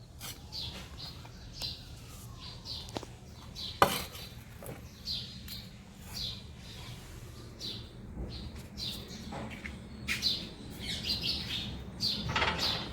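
Sparrows chirping outside: many short, high chirps repeating. A few sharp clicks, the loudest a knock about four seconds in.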